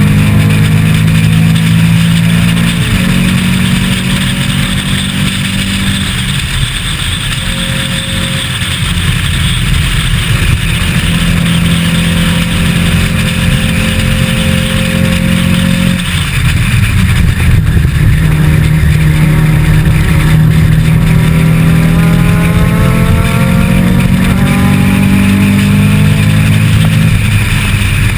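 Onboard sound of a racing Volkswagen Superbug's engine running hard at high revs, with wind and road noise. About a quarter of the way in it eases off briefly, then from a little past halfway its pitch climbs repeatedly as it accelerates through the gears.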